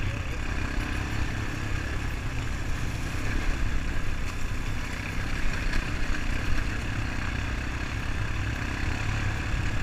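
Honda ATV's single-cylinder engine running steadily under way, with an even drone and no change in pace.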